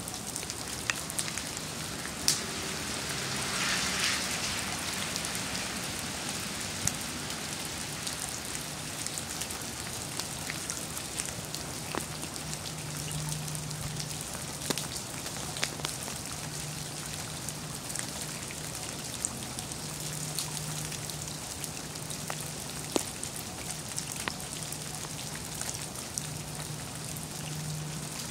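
Wet snow falling and dripping: a steady soft hiss with scattered drops ticking on leaves and wet pavement. A louder swell of hiss comes a few seconds in.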